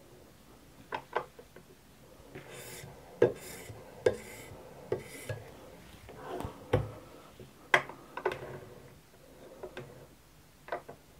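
Metal clinks and knocks from a guided knife sharpener and the knife being handled in it, with a few short scraping sounds about two to five seconds in.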